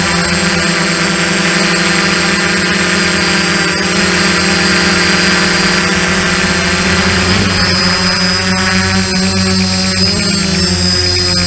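Quadcopter's electric motors and propellers whining steadily, as heard from the camera mounted on the drone. The pitch shifts slightly about two-thirds of the way through as the motors change speed.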